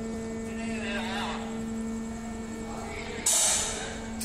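Steady electrical hum of the wagon tippler's plant, with a brief voice about half a second in and a sudden loud hiss about three seconds in that lasts under a second.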